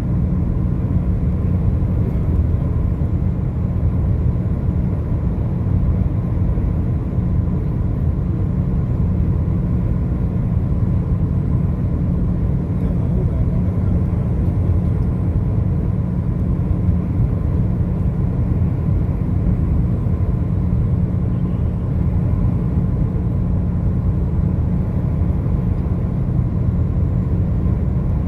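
Car driving at highway speed: a steady, unchanging low rumble of engine and tyre road noise.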